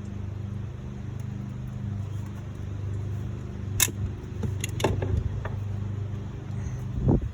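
A few sharp metallic clicks and clinks of hand tools and parts being worked under the hood, about four to five seconds in, and a dull knock near the end, over a steady low hum.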